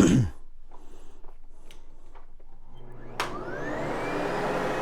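Sebo X8 upright vacuum cleaner switched on with a click about three seconds in, its motor spinning up with a rising whine and then running steadily.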